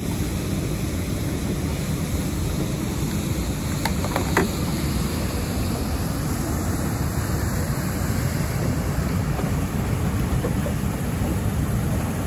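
Steady rush of fast river water running through rapids, with wind noise on the microphone; a couple of faint taps about four seconds in.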